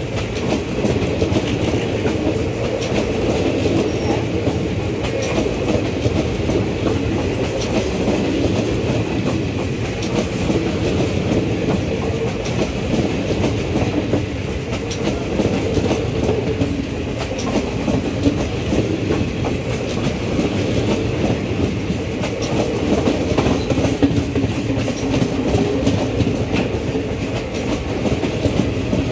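Indian Railways passenger coaches passing close by at speed: a steady rush of wheels on rail with a fast clickety-clack over the rail joints.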